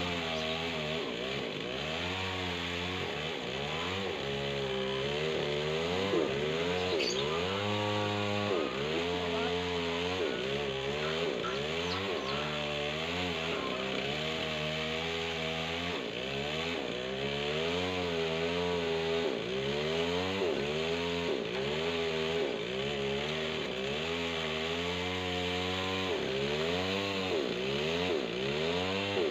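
Chainsaw engine running at high revs while cutting a dry tree. Its pitch dips and recovers about once a second as the chain bogs under load and frees up again.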